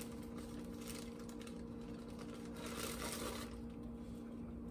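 Rustling of a plastic bag and light kitchen handling noise over a steady low hum, with a longer burst of rustle about three seconds in.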